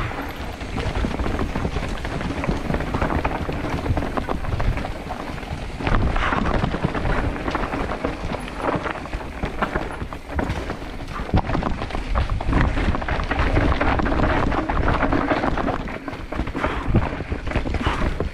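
Mountain bike riding down a rocky, rooty dirt trail, heard through a GoPro: tyres rolling and bumping over rock and roots, with many short knocks and wind rumbling on the microphone.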